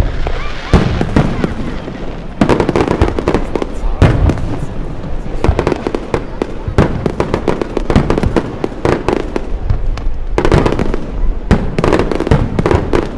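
Fireworks display: shells bursting one after another in quick succession with crackling, with two dense flurries of bangs, one about two and a half seconds in and another near the end.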